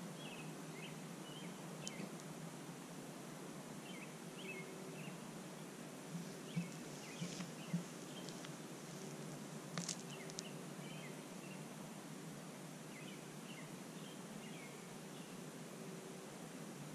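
Faint outdoor night ambience: a steady hiss and low hum with scattered short, high chirps from small animals, and a few soft clicks about two, seven and ten seconds in.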